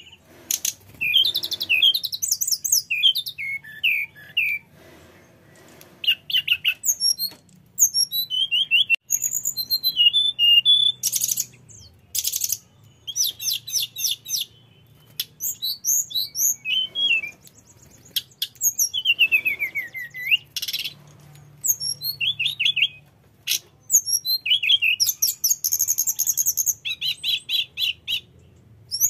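Male hill blue flycatcher (tledekan gunung) singing in long, varied phrases of clear whistles and quick trills, some notes sliding down in pitch, with short pauses between phrases. It is in continuous full song, running through its repertoire of phrases.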